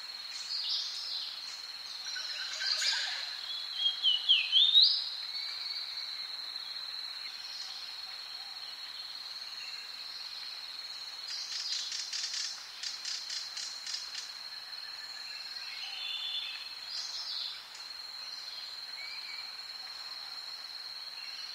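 Birds chirping outdoors over a steady, thin, high-pitched tone. A loud flurry of chirps and rising calls comes about three to five seconds in, a quick trill of repeated notes comes around twelve seconds, and scattered chirps follow.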